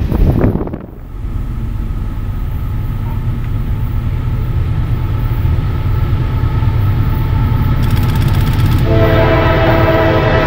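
A moment of loud passing-train noise cuts off about a second in, giving way to the steady low rumble of an approaching diesel freight train. About nine seconds in, the lead locomotive's air horn starts sounding a chord of several notes and holds it.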